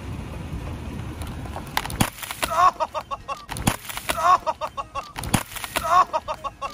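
Hard-plastic freezer ice pack cracking under a car tyre, after a low rumble of the car rolling onto it. A sharp crack comes three times about 1.7 seconds apart, each followed by a brief warbling sound.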